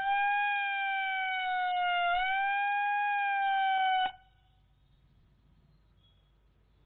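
A siren holds one steady tone with a slight dip in pitch about two seconds in, then cuts off abruptly about four seconds in. It is the signal for the two-minute silence observed at the Martyrs' Day tribute.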